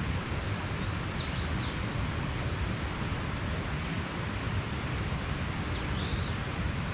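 Mountain stream running steadily, with a bird giving short high notes that rise and fall, in pairs about a second in and again near the end.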